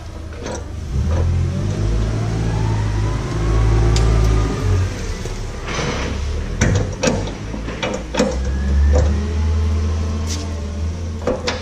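An engine running, its low rumble rising and falling, with several sharp knocks and clicks in the second half as the snowblower's parts are handled.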